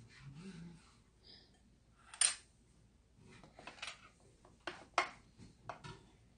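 Plates and cutlery being set down and moved on a table: one sharp clink about two seconds in, then a scatter of lighter clicks and knocks.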